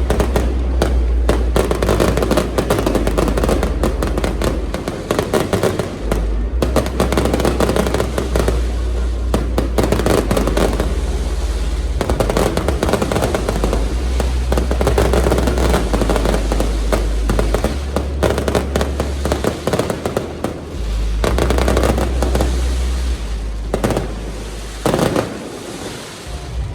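Fireworks display: a dense, continuous barrage of rapid bangs and crackling over heavy low booms, thinning out briefly near the end.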